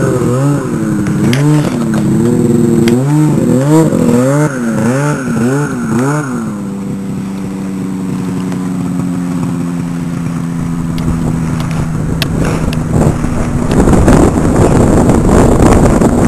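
Two-stroke snowmobile engine blipped up and down about once a second, then held at a steady drone from about six seconds in. Near the end a loud rough rushing noise joins it.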